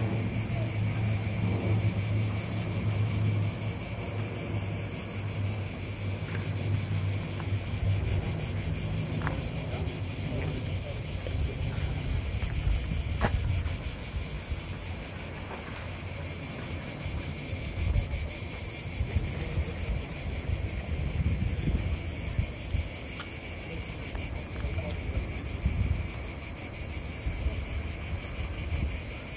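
A chorus of cicadas in the pines, a steady, unbroken high buzz, over a low rumble that is stronger in the first half.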